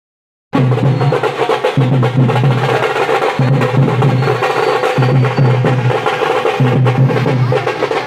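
Tamil folk drum troupe starting about half a second in, loud and fast: sticks on thappu frame drums and a side drum, with a deep beat that swells and drops back about every second and a half.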